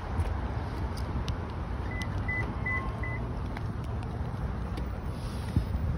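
Four short, high electronic beeps, evenly spaced about a third of a second apart, over a steady low rumble.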